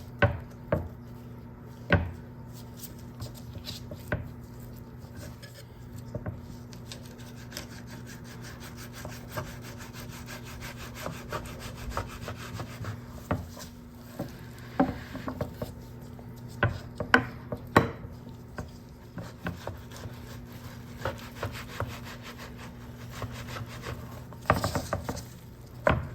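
Sharp knife scraping and sliding between a raw salmon fillet's skin and flesh to take the skin off: a run of fine rasping strokes with occasional sharper knocks, over a steady low hum.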